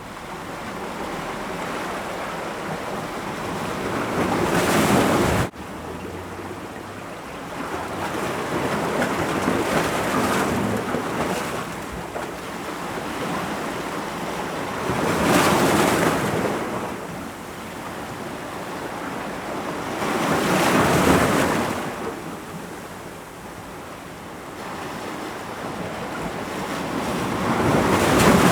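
Ocean waves breaking on rocks, a rushing wash that swells and ebbs about every five to seven seconds, with some wind on the microphone. The first surge cuts off suddenly about five and a half seconds in.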